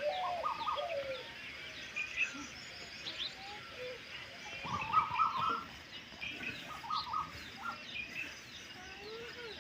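Many birds chirping and calling at once, a busy chorus of short high chirps. A few louder bursts of quick repeated lower notes stand out, the loudest about halfway through.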